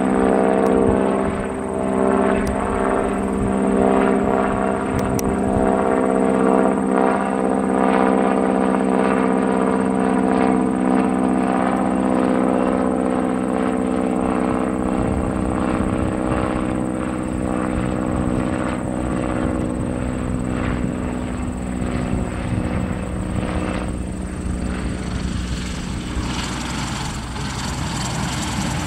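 Vintage biplane's piston engine and propeller droning steadily as the plane comes in low and lands; the engine note fades and turns rougher near the end as it rolls along the runway.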